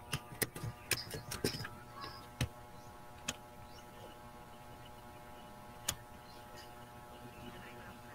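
Scattered sharp clicks from a computer being operated: a quick run of about six in the first second and a half, then single clicks about two and a half, three and six seconds in, over a faint steady hum.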